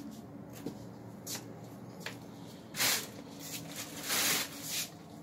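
Brief rustling and brushing noises, the two loudest about three and four seconds in, with a few faint clicks, over a steady low hum.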